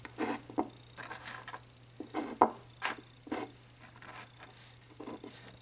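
Oracle cards being handled on a table, likely shuffled or slid: a run of soft, irregular swishes and taps.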